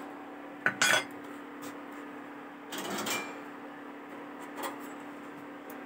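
Steady hum of an induction cooktop heating a pan of milk, with a few short clatters of kitchen utensils about a second in, around three seconds in and near five seconds in, as a metal spatula is fetched.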